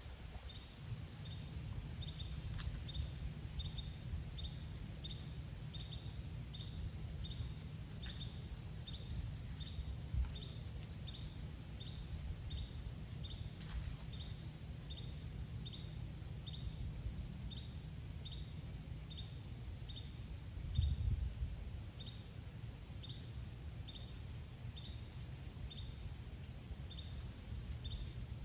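Outdoor summer insect chorus: a steady high-pitched insect drone with a separate short, high chirp repeating evenly about every 0.7 s, over a low steady rumble, with a brief low bump about two-thirds of the way through.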